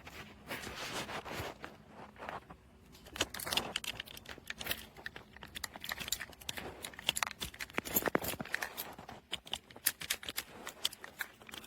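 Metal key scraping, clicking and jiggling against the keyhole of a bike cable lock in a long run of small irregular clicks and scrapes; the lock is rusted and the key will not go in.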